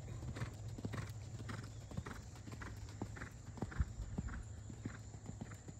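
Hoofbeats of a dapple-grey horse cantering on sand arena footing: regular thuds, about two strides a second.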